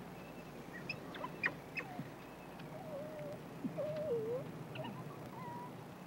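African wild dog pup calling: a few sharp squeaks, then wavering whines that bend up and down in pitch.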